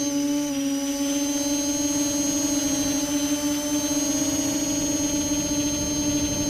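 Electric motors and propellers of a multirotor drone whining steadily, heard from the camera on board, the pitch shifting slightly as the throttle changes, with wind noise underneath.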